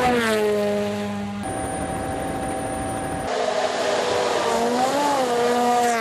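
WRC Rally1 car's turbocharged four-cylinder engine as the car passes at speed, its pitch falling sharply as it goes by, then holding a steady note. After abrupt changes in the sound, an engine note swells up and back down about five seconds in.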